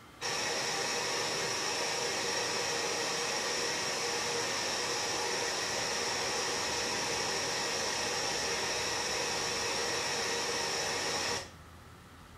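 Television static: a steady loud hiss from the TV's speaker while the screen shows snow, the sound of a video input carrying no picture signal. It starts suddenly and cuts off suddenly about eleven seconds in.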